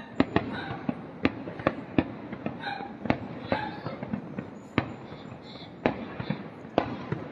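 Aerial fireworks bursting: a dozen or so sharp bangs at uneven intervals, some coming in quick succession, over a steady background hiss.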